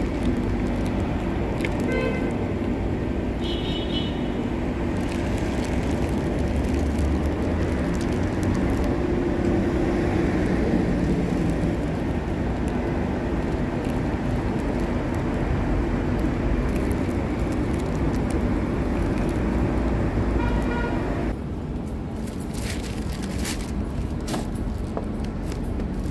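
Steady low rumble of street traffic, with a few short pitched sounds over it. About 21 seconds in the rumble drops and a run of sharp clicks follows.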